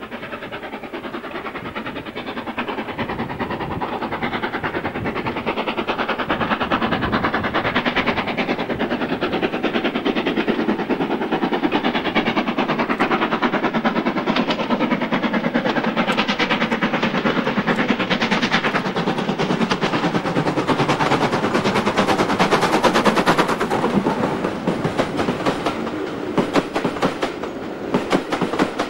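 Steam locomotive working a train with a rapid, dense run of exhaust beats that grows louder as it approaches. It is loudest a few seconds before the end, where it passes close beneath.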